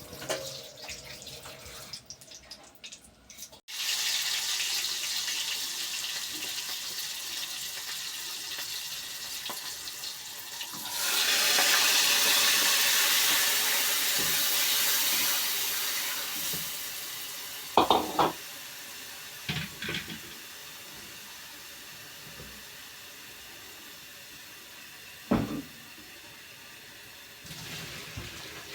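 Running water, as from a kitchen tap, starting a few seconds in, running louder for several seconds and then easing off. A few short knocks, like a pot or utensil being handled, come near the middle and later.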